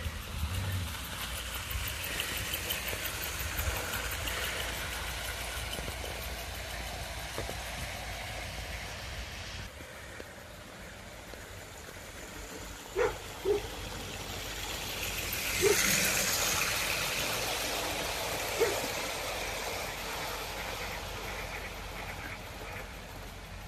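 Bachmann OO gauge model trains running on garden railway track: a steady rolling rumble of wheels and motors on the rails, with a few short sharp clicks in the second half.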